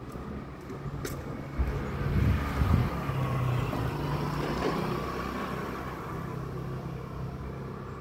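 A car passing: road noise swells over the first few seconds, its pitch sinking as it goes by, then fades slowly. Low rumbling bumps on the microphone about two seconds in are the loudest part.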